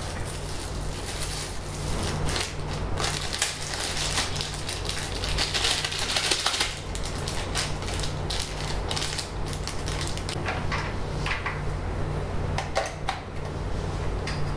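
Clear plastic wrapping crinkling and crackling as it is handled and crumpled, a dense run of small clicks, over a steady low hum.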